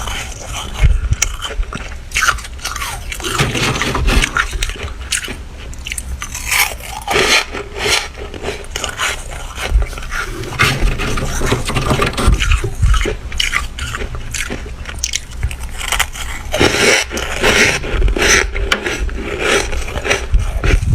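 Freezer frost being scraped loose and bitten, with continuous close-up crunching and chewing: a dense run of crisp crackles and scrapes.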